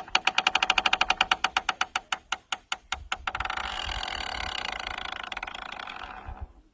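Sound effect: a fast run of pitched ticks that slows down over about three seconds, then a steady ringing tone for about three seconds that fades out.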